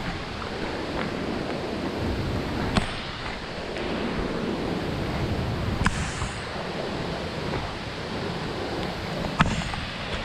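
Steady rushing noise of falling water and wind, with three sharp knocks about three seconds apart.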